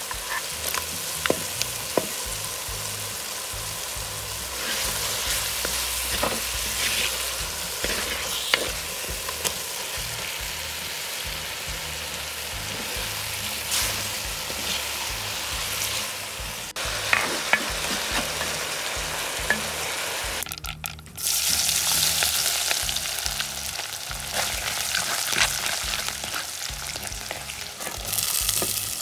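Food frying and sizzling in a clay pot, with a wooden spoon stirring and scraping in short clicks. After a brief drop about two-thirds of the way through, a louder oil sizzle takes over, swelling near the end as sliced onions fall into the hot oil.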